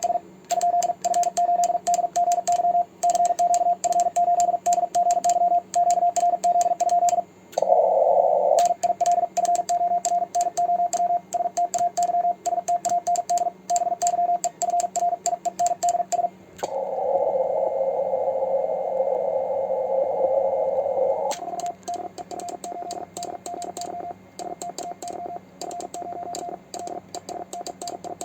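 Morse code (CW) from an amateur radio transceiver: a single steady tone keyed into fast dits and dahs. Twice it gives way to receiver hiss, briefly near the 8-second mark and for about four seconds past the middle. After the second hiss the code carries on noticeably quieter.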